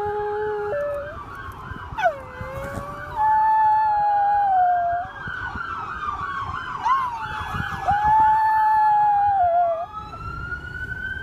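A dog howling along with a wailing and yelping siren: the dog gives several long howls, each held on one note and dropping at the end, over the siren's rising, falling and rapidly warbling tone.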